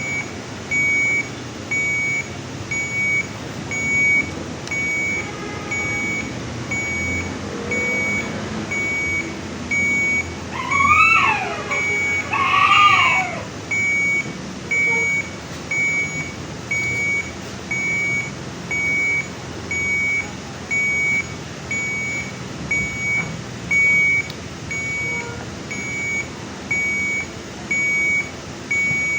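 A NICU patient-monitor alarm beeps steadily at a high pitch, about once a second. About ten seconds in, a newborn gives two short cries that rise and fall in pitch.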